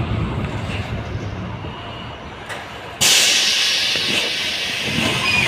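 LVS-86K tram slowing to a stop with a low running rumble, then about three seconds in a sudden loud hiss of air that slowly fades.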